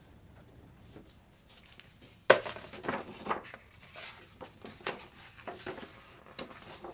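A sharp knock about two seconds in, then a large book being handled on a worktable: the cover is opened and its pages are turned, paper rustling and flapping in short bursts.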